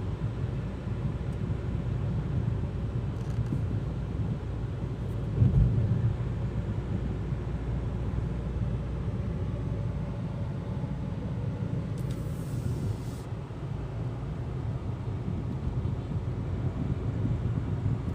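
Cabin noise inside a Hyundai Creta driving at about 65 km/h with the air conditioning on: a steady low rumble of road, tyre and engine noise. A single thump comes about five and a half seconds in, and a brief high hiss around twelve seconds in.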